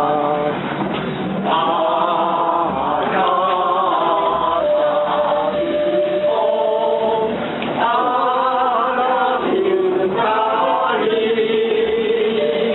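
A group of people singing a song together, line by line, with held notes and short breaks between phrases.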